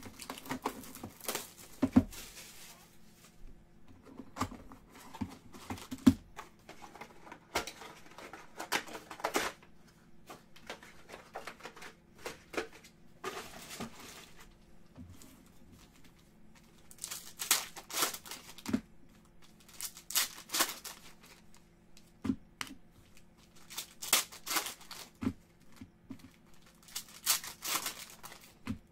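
Foil football-card packs being torn open by hand and their wrappers crinkled, in repeated bursts of tearing and rustling.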